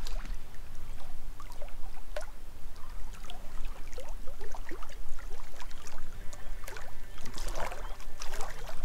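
Small waves lapping at the pond's edge: irregular little plops and splashes of water against the shore, a few louder ones near the end.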